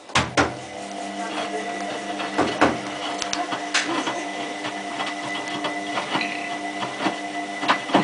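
Hotpoint Aquarius+ WMF740 washing machine turning its drum in the main wash of a cottons 30 programme. The motor hum and whine comes in just after the start and then holds steady, with irregular clicks and knocks from the laundry tumbling in the drum.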